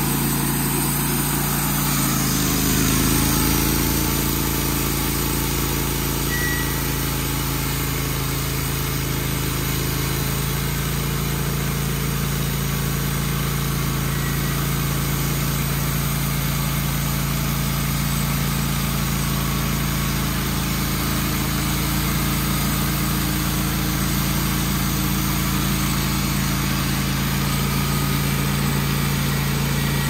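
Wood-Mizer portable band sawmill: its air-cooled gas engine revs up about two seconds in and then runs steadily under load as the band blade saws a board off a small pine log.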